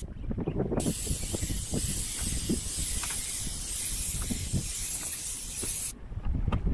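Airless paint spray gun hissing steadily as it sprays undercoat steel primer. The hiss starts about a second in and cuts off suddenly near the end as the trigger is released.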